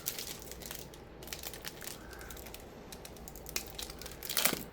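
Trading card pack wrapper crinkling as it is handled, with scattered small clicks and a louder crackle near the end.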